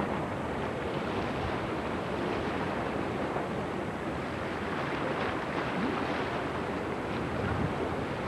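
Steady rush of wind on the camcorder microphone over water moving past a boat out on open harbor water.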